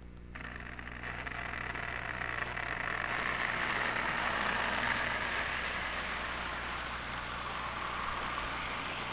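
HO scale model freight train running past on its track, led by a Burlington SD24 and a CP Rail SD40-2, with the locomotives' motors whirring and the wheels rolling on the rails. The sound starts just after the opening, builds to its loudest about halfway through, then holds a little softer.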